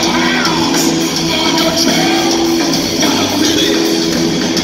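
Rock band playing live and loud: electric guitars, bass and drums, with a vocal line over them, heard from within the audience in a large hall.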